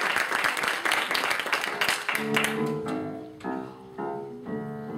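Audience applauding, dying away about two seconds in, as an upright piano starts a series of chords opening the next song.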